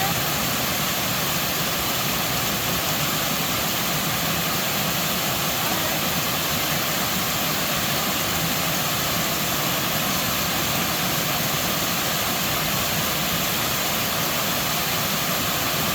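Waterfall, a steady rushing roar of falling water that does not change.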